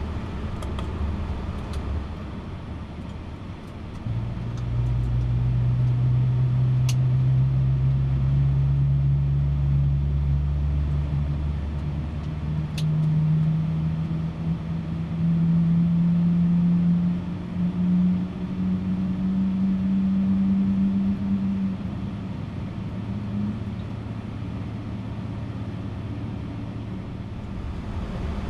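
Boeing 777 turbofan engine starting: a low hum comes in about four seconds in and rises slowly and steadily in pitch for about fifteen seconds as the engine spools up, with two brief clicks along the way.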